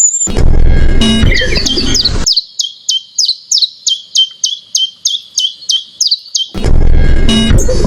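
A bird calling in a rapid series of short, high, falling notes at about four a second, heard alone for about four seconds in the middle. Loud music plays with the calls at the start and comes back near the end.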